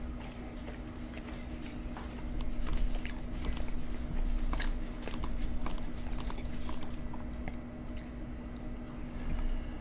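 Close-miked chewing and biting of deep dish supreme pizza, with sharp clicks of a fork against the plate as more pieces are cut. It gets louder from about two seconds in to about seven seconds in, over a steady low hum.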